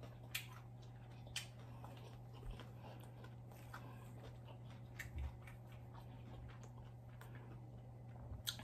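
Faint chewing of a crispy fried birria egg roll, with a few soft clicks and crunches, over a steady low hum.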